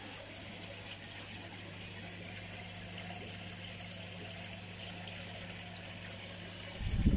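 Koi pond water trickling and splashing from the filter returns, over a steady low pump hum. A brief low rumble comes in near the end.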